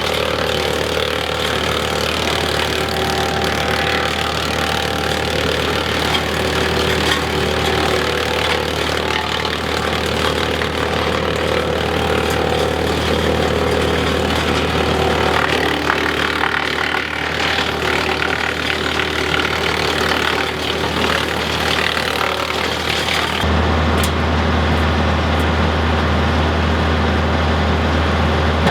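Mahindra tractor's diesel engine running steadily and driving a WoodMaxx PTO wood chipper, with a hiss of the chipper over the low engine hum. About five seconds before the end the sound switches abruptly to a deeper, steadier engine hum.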